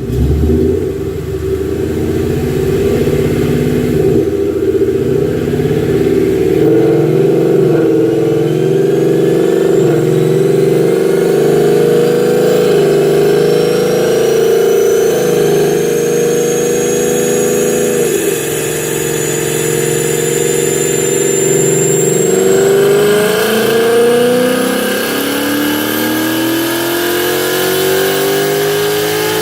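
2018 Ford Mustang GT's 5.0 V8 running loud through a full aftermarket exhaust, its note rising and dipping several times, then climbing steadily near the end.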